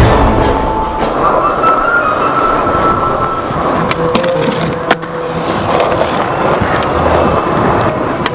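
Skateboard wheels rolling over a concrete plaza, then the board scraping along the edge of a concrete ledge. A single sharp clack about five seconds in as the board comes back down, then more rolling.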